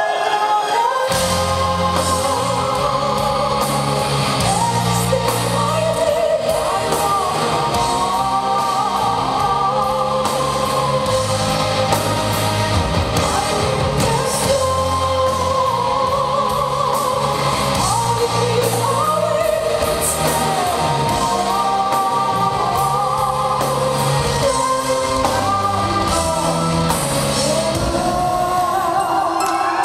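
A live symphonic metal band playing with a woman singing over distorted guitar, bass and drums. The bass and drums come in about a second in.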